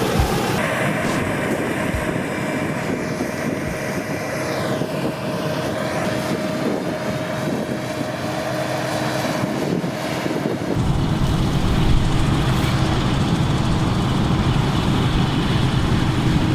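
International Harvester 1480 combine harvester running steadily, engine and threshing machinery going together with a steady whine over the noise. About eleven seconds in, the low rumble grows louder and stays up.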